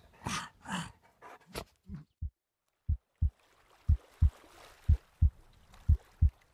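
A dog huffing twice close to the microphone, then a heartbeat sound effect: low paired thumps, lub-dub, about once a second from about a second and a half in.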